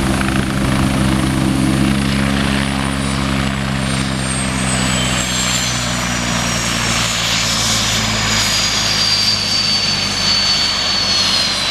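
Westland Wasp helicopter's Nimbus turboshaft winding down on the ground, its high turbine whine falling steadily in pitch as the rotor slows. The low rotor drone fades out about halfway through: the engine is being shut down.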